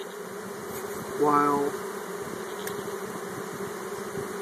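Italian honeybees from a freshly shaken-in package humming steadily over an open hive, the hum of a disturbed colony. A brief voice sounds about a second in.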